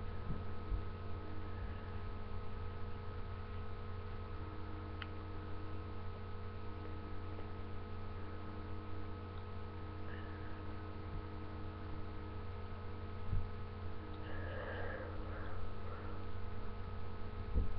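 Steady electrical mains hum made of several fixed tones, with a faint click about a third of the way in and a few faint soft noises near the end.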